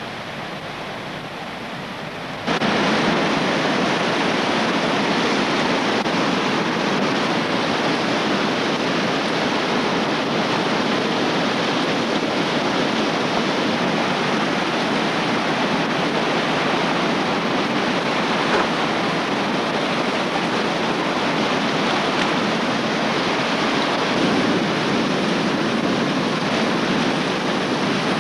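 Whitewater of a river rapid rushing steadily, becoming much louder about two and a half seconds in.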